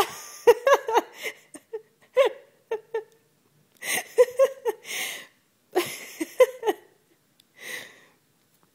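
A woman laughing hard in repeated high, breathy bouts, about five of them, the last one faint.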